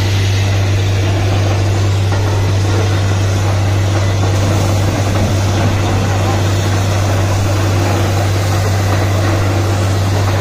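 Truck-mounted borewell drilling rig running with a steady, loud drone and a rushing hiss, as water and slurry are blown out of the borehole.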